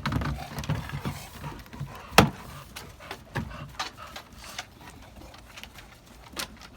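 Irregular clicks and knocks, the loudest a sharp knock about two seconds in, with some low muffled sound in the first second.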